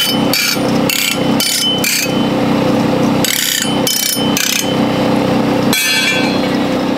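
A large motor-driven grinding wheel runs with a steady hum while forged steel pitchfork tines are pressed against it in short, repeated touches. Each touch gives a brief scraping grind, and there is a longer grind near the end.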